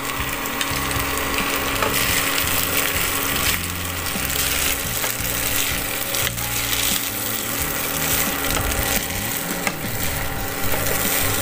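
Wooden spatula stirring and scraping rice against a nonstick pan, with scattered clicks and knocks over a steady sizzle of frying.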